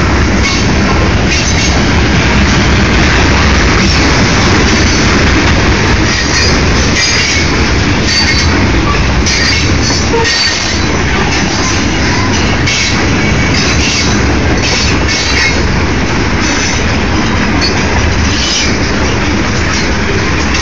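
Freight train tank cars rolling past: a steady heavy rumble of steel wheels on rail, with short high-pitched wheel squeals coming and going.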